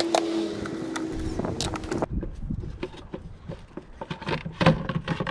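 A steady whine with a slowly falling pitch and some hiss stops abruptly about two seconds in. After it, the plastic air box of a Nissan Versa Note's intake gives a string of clicks and knocks as it is worked loose and lifted out of the engine bay.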